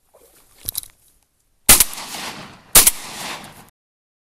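Two shotgun shots about a second apart, each trailing off over about a second. A couple of sharp clicks come shortly before the first shot.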